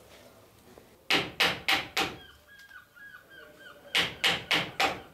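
Hammer driving a wooden-handled chisel into a laminated wooden boat stem: two runs of four sharp blows, about three a second, the first starting about a second in and the second near the end.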